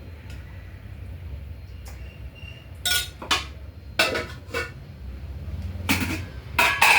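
Metal dishes and utensils clinking: a few sharp knocks with brief ringing, one pair about three seconds in, another about four seconds in, and a louder cluster near the end.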